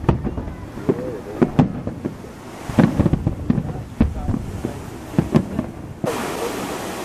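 Aerial fireworks bursting in rapid succession: many sharp bangs, each with a rumbling echo, and spectators' voices between them. About six seconds in, a steady rushing noise comes in.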